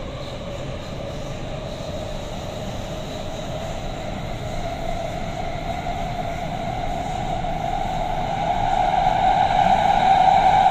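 Metro train running through a tunnel: a steady rumble with a whine that rises slightly in pitch and grows steadily louder as the train gathers speed.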